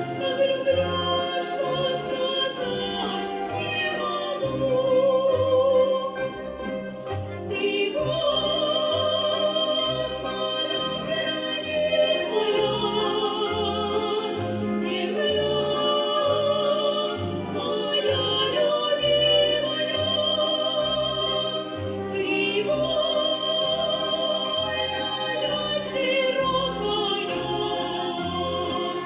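A Russian folk-instrument orchestra of music-school students playing a lyrical song arrangement, with wavering melody lines over a steady bass beat.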